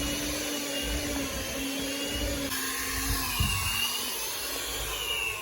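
Electric kitchen mixer running steadily, beating bread dough, with a change in its note about halfway through.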